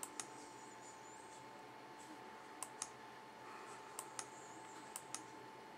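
Computer mouse clicking in quick press-and-release pairs, four times, as photos are stepped through on screen, over a faint steady hum.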